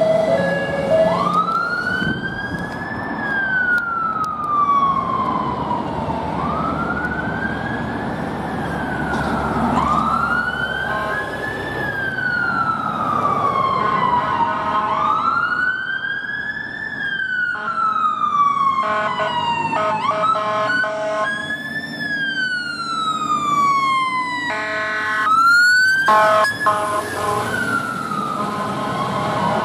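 Fire engine sirens wailing, a slow rise and fall repeating every few seconds. Bursts of a harsh bullhorn honk break in a couple of times, the loudest about 25 seconds in.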